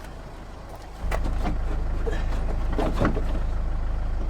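A few sharp clicks and knocks from handling the window regulator parts inside a car door, over a steady low rumble that drops away briefly and returns about a second in.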